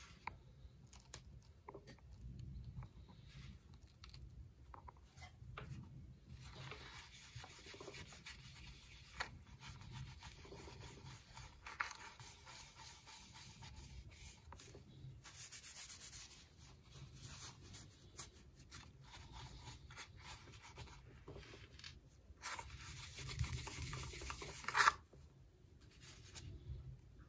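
Hands rubbing and scuffing over a glazed ceramic bowl wrapped in masking tape: a faint continuous rubbing noise that grows louder twice, once around the middle and again near the end, where it finishes in a sharp knock.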